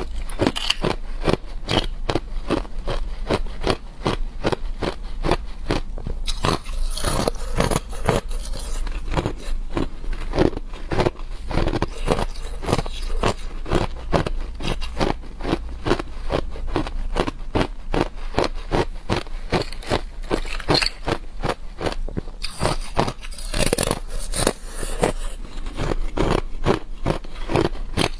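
Thin clear ice being chewed and crunched close to the microphone: a dense, continuous stream of crisp cracks and crackles, with pieces of ice also snapped off by hand.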